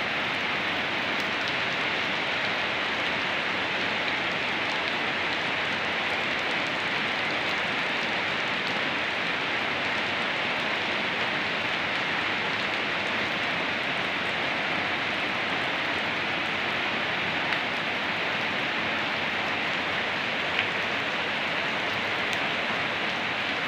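Steady rain falling on a wet concrete road and puddles, an even hiss at constant strength, with two brief faint ticks in the second half.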